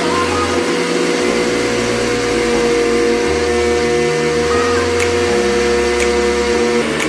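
Electric countertop blender running steadily with a high, even motor whine while oil is trickled in through its lid, emulsifying into mayonnaise.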